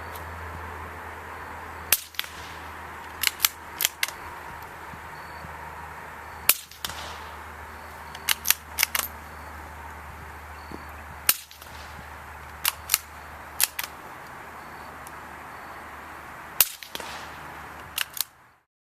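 Suppressed .22 rifle, a Savage fitted with a Gemtech Mist suppressor, firing four sharp, short shots about five seconds apart. Smaller metallic clicks come in twos and threes between the shots.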